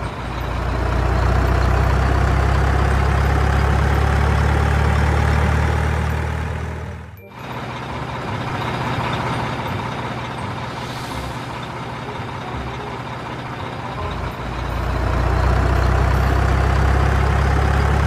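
Heavy diesel dump truck engine running with a deep, steady rumble. It cuts out briefly about seven seconds in, runs quieter for a while, then builds back up loud near the end.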